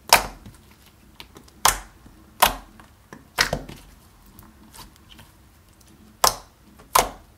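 Clear slime pressed and poked with the fingers, making about six sharp pops at uneven intervals, the sound of air pockets popping in the slime.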